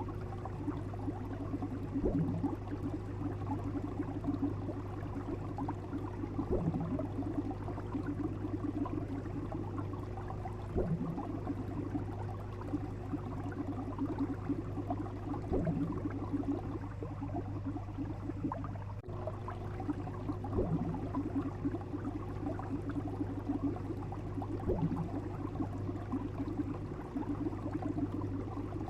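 Steady bubbling, gurgling water sound over a constant low hum, with a soft thud recurring about every four to five seconds and a brief dropout partway through.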